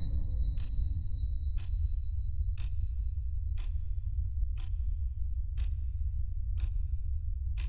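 A clock ticking steadily about once a second, over a low steady rumble.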